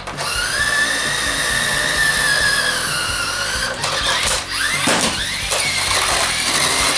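Adventure Wheels Lightning Flipper toy RC car's electric drive motors whining, the pitch gliding up and down as the car speeds up, slows and reverses. A few sharp knocks about four and five seconds in.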